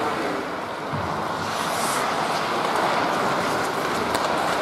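Ice hockey rink game sound: a steady rush of noise with skate blades on the ice, and a short higher scrape of a skate about two seconds in.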